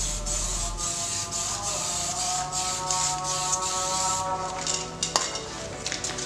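Aerosol spray-paint can hissing in short repeated bursts as paint is sprayed onto a motorcycle wheel rim, stopping about four seconds in; a sharp click about a second later.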